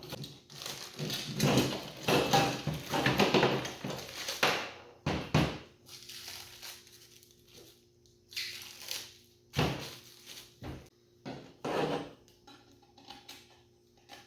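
Diesel heater exhaust parts being handled: rustling and clattering for the first five seconds or so, then scattered clinks and knocks.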